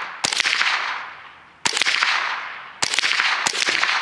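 Four single shots from an AR-style semi-automatic rifle at uneven intervals, each followed by a long echo. The rifle's home-modified trigger is not resetting the hammer properly.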